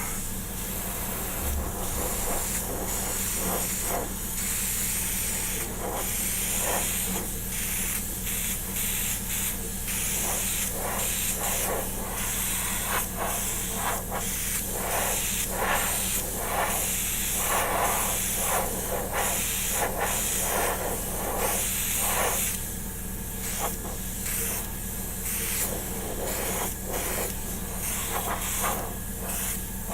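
Airbrush spraying acrylic paint: a steady hiss of air with many short spurts as the trigger is worked on and off.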